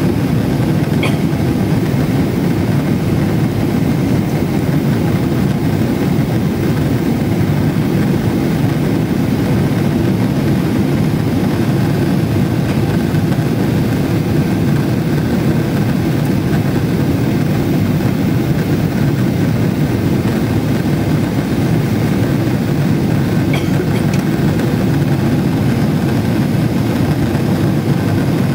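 Boeing 777-300ER's GE90-115B turbofans and the rushing airflow, heard inside the cabin during the climb after take-off: a loud, steady, dense low rumble with a faint high whine above it.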